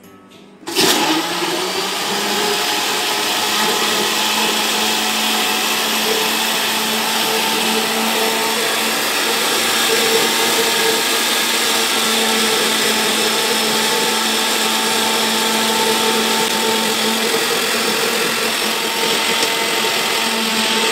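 Panasonic mixer-grinder's motor switching on about a second in and running steadily, blending strawberries, milk and sugar into a milkshake in its plastic jar.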